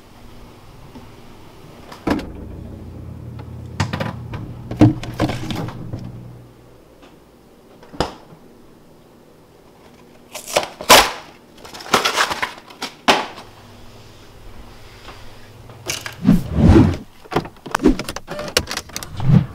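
A string of separate knocks, clicks and rustles as a cardboard carton of Yoo-hoo bottles is handled at a refrigerator, over a low hum in the first few seconds. The loudest knocks come about eleven to thirteen seconds in and again near the end.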